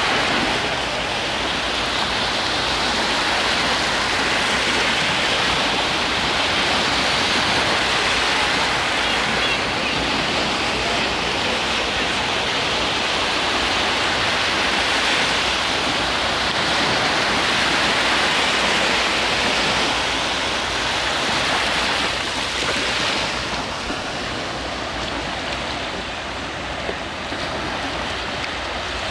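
Small sea waves breaking and washing up onto a sandy beach: a steady rush of surf, a little softer in the last few seconds.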